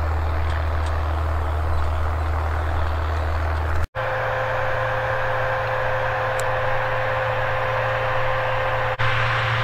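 Fendt Favorit 818 tractor's six-cylinder diesel working steadily under load while pulling a seed drill through a field. The sound drops out for an instant about four seconds in, after which the engine is heard closer, with a steady hum and a clearer high tone over it.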